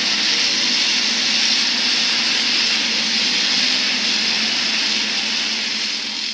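Hobby stock race cars' engines running together at speed on a dirt oval, a loud steady din that fades out near the end.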